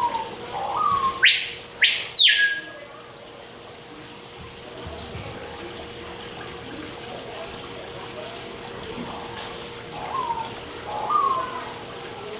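Several birds calling in an aviary. About a second in come two loud arching whistles, followed by scattered high chirps and short down-slurred notes, all over a faint steady hum.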